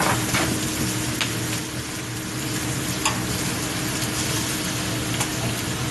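Eggs, meat and bread sizzling on a hot flat-top griddle, a steady frying hiss over a low hum, broken by a few short sharp clicks about a second in, near three seconds and near five seconds.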